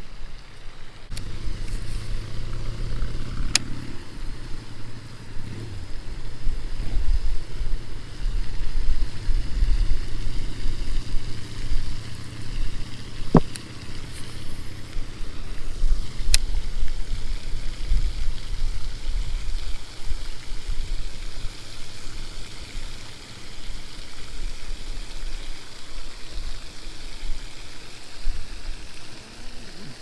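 Wind buffeting the microphone: a gusty low rumble that swells and drops, with a few sharp clicks, the clearest about three and a half seconds in and around thirteen and sixteen seconds in.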